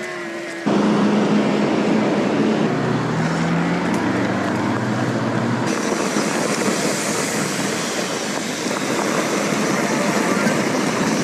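Steady rush of wind and road noise on the microphone of a bike being ridden along a road, starting abruptly early in the clip, with a low hum rising in pitch for a few seconds in the middle.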